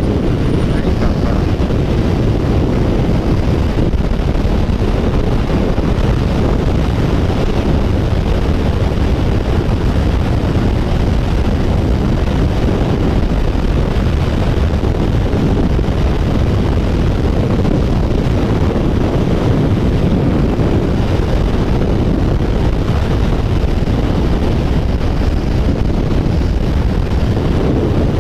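Heavy wind rush buffeting the microphone of a Kawasaki Ninja 1000 motorcycle cruising steadily at highway speed, with engine and road noise mixed underneath. The sound holds even throughout.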